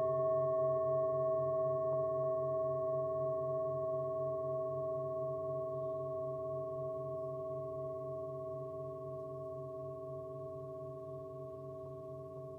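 Himalayan singing bowls ringing: several steady tones held together and slowly fading, the lowest with a regular pulsing wobble.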